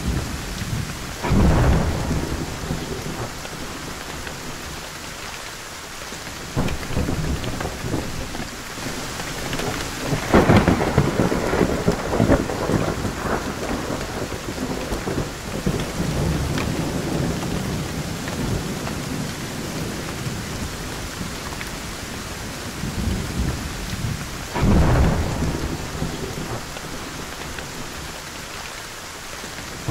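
Thunderstorm: steady heavy rain with thunder over it. A thunderclap comes about a second and a half in, a longer rolling rumble starts about ten seconds in and lasts several seconds, and another clap comes near the end.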